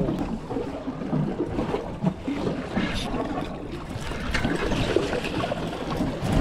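Water sloshing and splashing around a small fishing boat at sea, an uneven wash with scattered small knocks.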